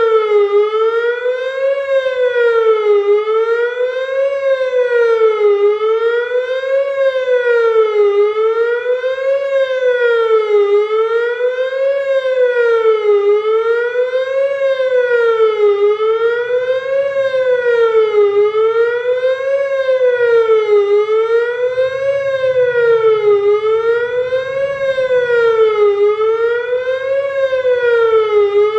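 Federal Signal Modulator 3012 electronic outdoor warning siren sounding a fast wail for a routine tornado siren test. Its pitch sweeps up and down evenly, about one rise and fall every two and a half seconds.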